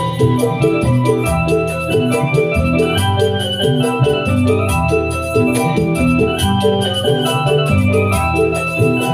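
Obrog music at sound-check volume through a sound system: an electronic keyboard with an organ-like tone plays a fast, stepping melody over a steady percussion beat.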